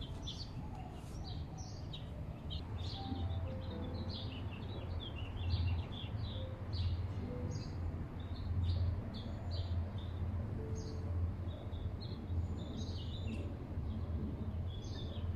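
Many small birds chirping at once, short high chirps overlapping throughout, over a low background rumble.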